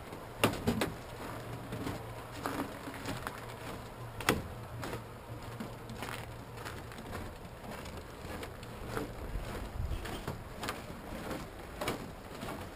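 Footsteps on a snow-covered wooden dock, a step every second or two, the sharpest about half a second in and about four seconds in, over a low steady rumble.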